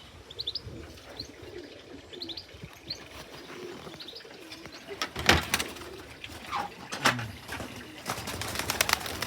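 Racing pigeons cooing, with small birds chirping in short high notes during the first few seconds. A few sharp, loud clatters come about five and seven seconds in, with a quicker run of them near the end.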